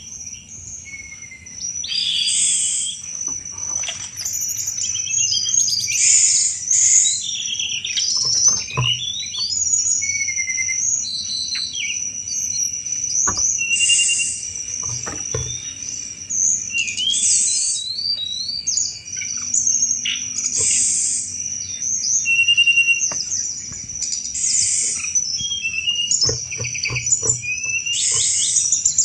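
Tledekan gunung singing in 'cetrekan' style: quick bursts of chattering, clicking notes and short rising whistles, phrase after phrase with brief gaps, over a steady high insect-like tone.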